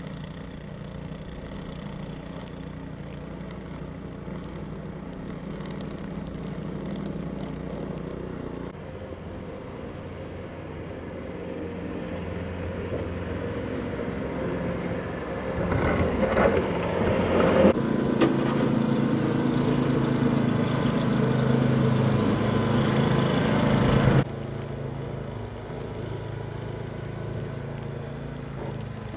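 Motor vehicle engines running steadily, with one growing louder for several seconds before the sound stops abruptly and a quieter engine hum carries on.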